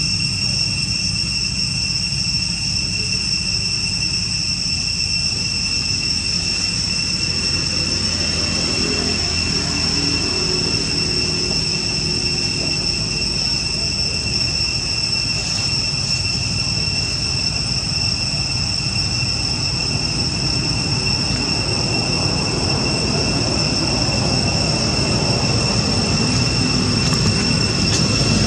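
Steady high-pitched insect drone holding one unbroken tone, over a constant low rumble.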